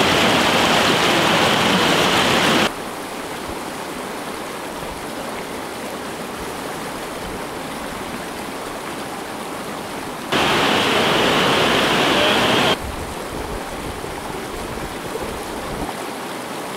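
Fast river water rushing over rocks, an even hiss-like roar. It drops abruptly in loudness a few seconds in, comes back louder for about two seconds later on, then drops again.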